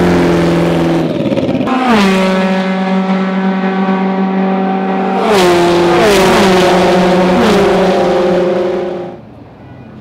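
Historic Formula One racing car engine at high revs, its pitch held steady with a few sudden drops and sharp cracks. It cuts off abruptly about nine seconds in.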